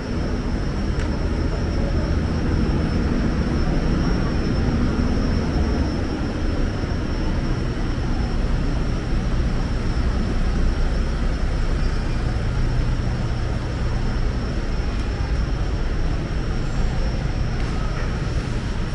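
Steady urban background noise: a continuous low rumble with a faint, steady high-pitched whine over it.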